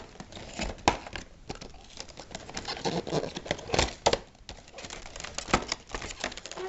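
Cardboard model box and its packaging being handled and pulled open: a run of irregular clicks, taps and rustles.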